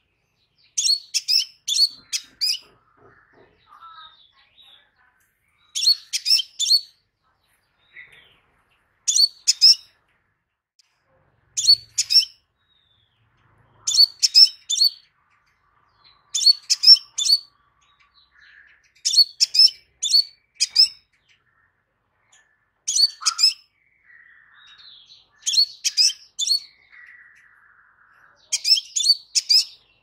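Crimson sunbird calling: short bursts of three to five rapid, high-pitched chirping notes, repeated every two to three seconds.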